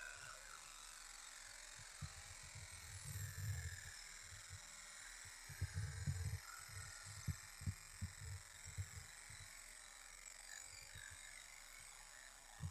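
60W MOPA fiber laser engraving 1/4-inch steel: a faint steady buzz and hiss as the pulsed beam marks the metal. Soft low thumps come and go through the middle.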